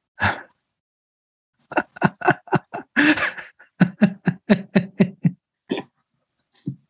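A man laughing: one short burst near the start, then, after a pause, a long run of quick rhythmic pulses, about five a second, lasting some three and a half seconds.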